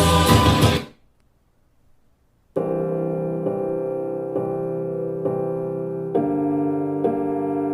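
Recorded music: a full-band song with singing ends about a second in, and after a short silence a piano starts a new piece with chords struck at an even pulse, about one a second, growing fuller near the end.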